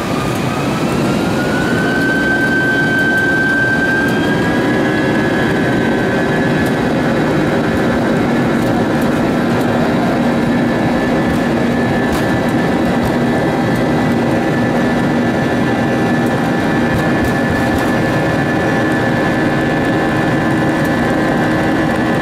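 Airbus A320's IAE turbofan engines heard from inside the cabin during the takeoff roll: a whine rises over the first couple of seconds as the engines spool up to takeoff thrust, then holds steady over a loud, even rumble.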